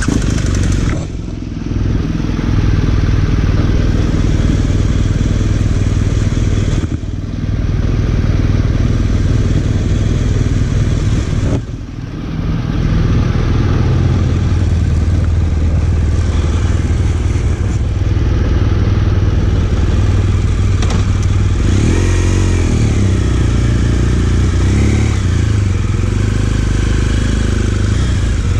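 BMW R1200GS motorcycle's boxer-twin engine running under way, with the engine sound dipping briefly three times, about a second in, about seven seconds in and about twelve seconds in, and shifting up and down in pitch a little after twenty seconds.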